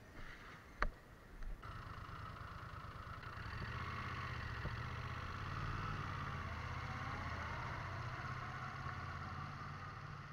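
A vehicle's motor running steadily as it moves along, a low hum with a higher whine over it, heard through the action camera's own microphone. There is a sharp click about a second in.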